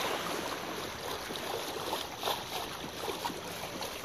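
Sea water rushing and sloshing against the side of a small boat, a steady noisy wash with a short louder moment about two seconds in.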